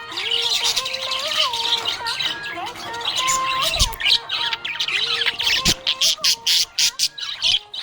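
Budgerigars chirping and chattering in a dense, high twitter, breaking into quick separate chirps in the last couple of seconds.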